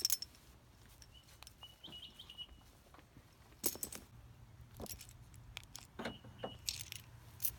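Several sharp clinks and rattles of handled gear, with short high chirps from a bird in between.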